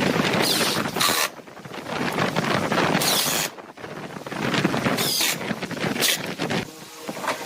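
Woodturning lathe with a turning tool cutting the spinning blank in repeated passes. A hissing, scraping sound comes in surges and drops off sharply between passes about three times.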